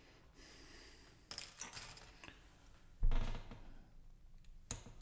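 LEGO plastic bricks being handled and snapped together: a soft rustle, several sharp plastic clicks, a louder knock about three seconds in, and another click near the end.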